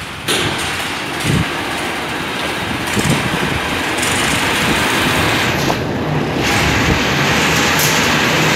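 Cotton machine running with a steady mechanical noise while raw seed cotton is fed onto its perforated metal screen.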